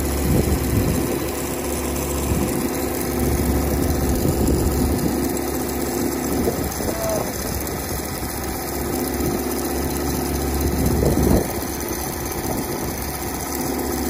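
Yanmar combine harvester's diesel engine running steadily while its unloading auger discharges threshed rice, with the hiss of grain pouring into a bulk bag.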